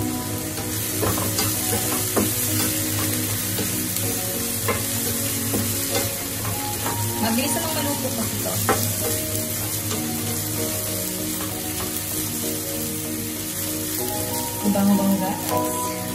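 Onion, mixed vegetables and crab sticks sizzling in oil in a nonstick frying pan, stirred with a wooden spatula, with scattered clicks and scrapes of the spatula against the pan.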